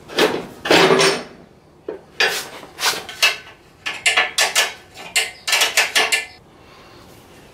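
Short metallic clinks and rattles, coming in quick clusters, as the bare-metal rear fender of a motorcycle is worked loose from its mounts with hand tools.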